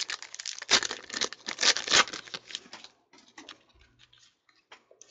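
Foil wrapper of a 2014 Panini Prizm card pack being torn open and crinkled, loudest in the first two seconds. It is followed by softer, scattered clicks of the cards being handled.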